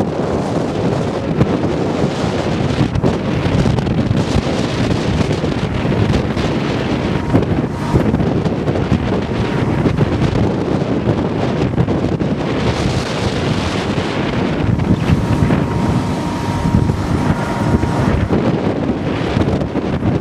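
Gusty wind buffeting the microphone, loud and continuous, with a faint steady high tone in the second half.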